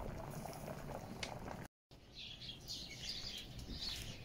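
Maize and wheat bait boiling hard in a large cauldron, a steady bubbling that cuts off suddenly a little under two seconds in. After that, small birds chirp over a quieter background.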